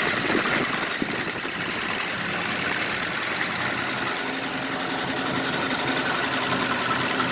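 1966 Dodge Dart GT's 225 slant-six engine running at a rough, barely settled idle after being brought back to life, a steady unbroken engine sound.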